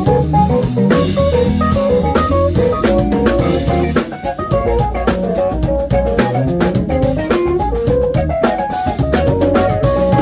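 Live jazz band playing: drum kit and bass guitar under a quick, busy melodic lead line, with the guitar prominent.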